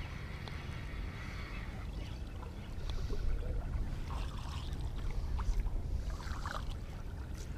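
Open-water ambience aboard a small fishing boat: a steady low rumble of wind and water, with faint scattered light clicks and knocks in the second half.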